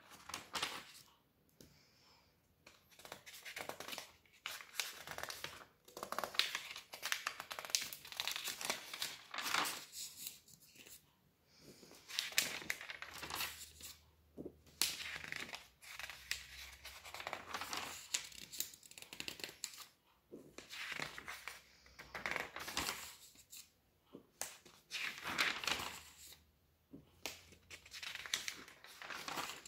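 Magazine pages being turned by hand: repeated bursts of paper rustling and crinkling, with short pauses between them.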